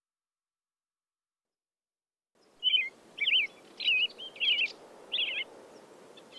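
Silence, then a bed of outdoor ambience with a soft low hiss fades in about two and a half seconds in, over which a songbird sings five short, quick warbling phrases, roughly one every half to three-quarters of a second.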